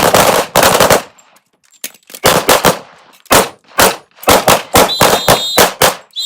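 Handgun shots from several shooters on a firing line, going off in quick, overlapping, uneven strings. A short high whistle tone sounds about five seconds in and again at the very end.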